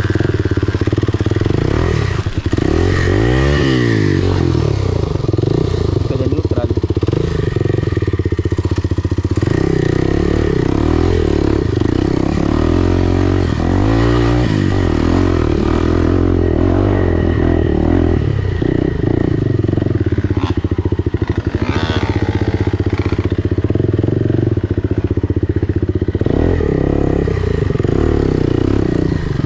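Enduro dirt bike engine running, its pitch swinging down and up with the throttle, sharply a few seconds in and again about halfway through.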